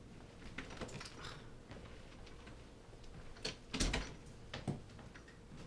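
Scattered soft taps and clicks in a quiet room, the loudest a short cluster about three and a half to four seconds in and another near five seconds: footsteps and small handling noises.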